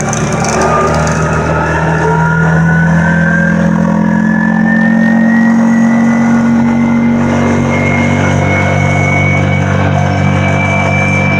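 ATV engine running under way. A whine climbs slowly and steadily in pitch as the machine gains speed.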